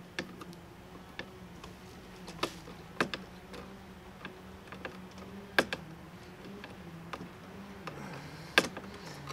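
A screwdriver and wrench tightening a bolt through a kayak anchor mount bracket: scattered sharp clicks and ticks of the tools at irregular intervals, the loudest about three, five and a half and eight and a half seconds in, over a steady low hum.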